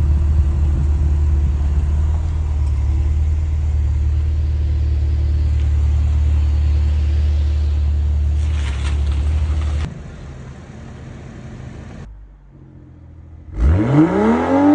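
BMW sports-exhaust idling with a steady deep drone that drops away just before halfway. Near the end, a BMW M240i's 3.0-litre turbocharged straight-six on a stainless exhaust is blipped once, the pitch climbing fast and falling back.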